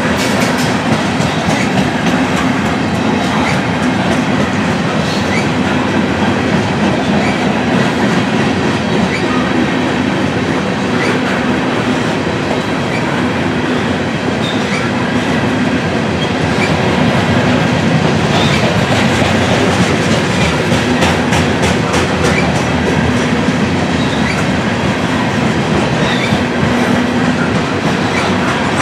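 Freight train's covered hopper cars rolling past steadily, their steel wheels clicking and clattering over the rail joints.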